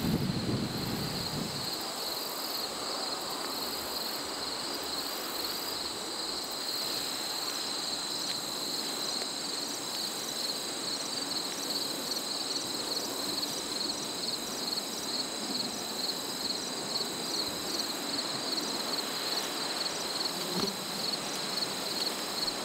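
Insects chirping steadily in a high, even drone, with a regular pulse repeating a few times a second. Wind rumbles briefly on the microphone at the start.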